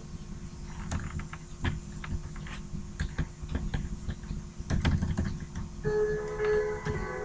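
Computer keyboard typing: irregular key clicks. A chiming melody of background music starts near the end.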